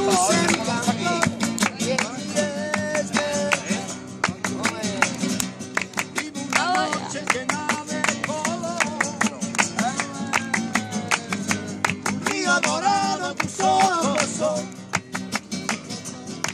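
Live flamenco-style music: two Spanish guitars strummed in quick strokes, hands clapping in time (palmas), and a man's voice singing drawn-out, bending phrases at intervals.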